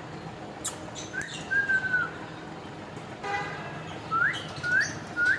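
Pet parrot whistling: a held whistle about a second in, a short buzzy call in the middle, then three short rising whistles near the end.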